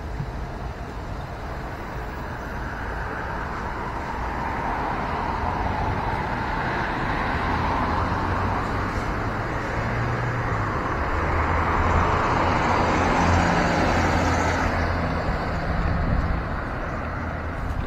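Road traffic: a motor vehicle passing on a street, its tyre and engine noise building over several seconds with a low hum, loudest about two-thirds of the way through, then easing.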